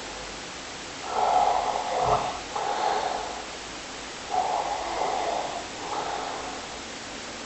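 Snoring: noisy snores in pairs, about one pair every three seconds, with a brief low thump about two seconds in.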